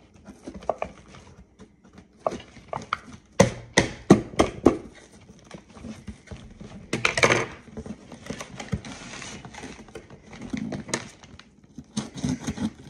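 Scissors cutting and scraping at packaging, with scattered sharp clicks; a cluster of louder knocks comes about three and a half to five seconds in, and a short scraping rustle at about seven seconds.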